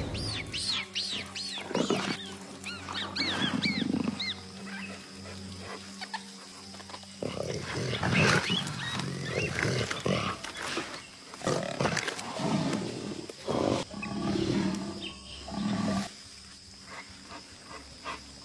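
A jaguar growls and snarls repeatedly over background music. A string of short, high chirping calls comes in the first few seconds.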